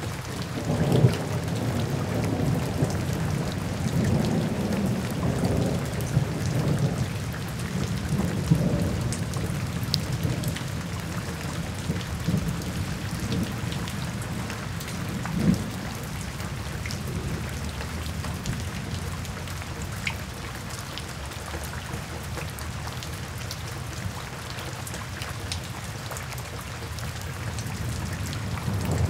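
Steady rain falling, with a low rumble that is strongest in the first ten seconds or so.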